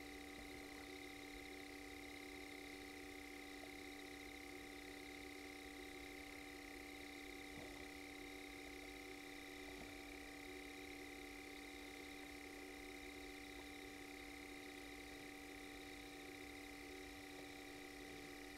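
Faint, steady night ambience: unbroken high trilling of night insects over a constant low hum, with a couple of faint clicks about eight and ten seconds in.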